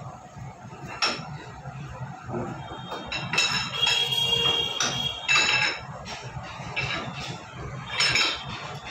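Metallic clanks and clinks from a hand-operated pipe ring rolling machine as its screw handle is worked against the stainless steel pipe, several separate strikes. One strike near the middle rings on with a bright metallic tone.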